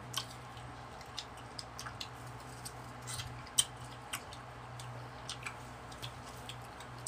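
Wet chewing and lip-smacking of people eating soft ripe mango, a scatter of small irregular mouth clicks with one sharper click about three and a half seconds in, over the steady low hum of an electric fan.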